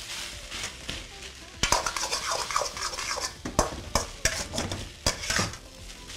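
Steel ladle stirring and scraping fried rice around a steel wok, with irregular sharp clinks as it strikes the pan, over a light sizzle from the high flame.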